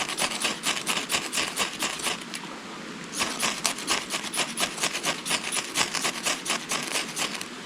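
A blade scraping and shaving resin-soaked pine fatwood in quick repeated strokes, pausing briefly about two and a half seconds in.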